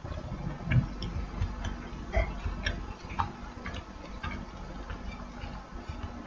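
A person eating close to the microphone: chewing with small irregular mouth clicks and light crunches.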